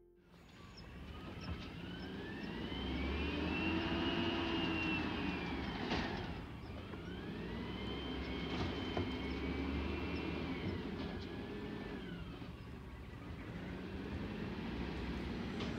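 Peterbilt 320 garbage truck with an Amrep automated side-loader body working down the street: the engine revs up and back down in three long swells, with a whine rising and falling each time, as the arm lifts and dumps carts. A single knock sounds about six seconds in.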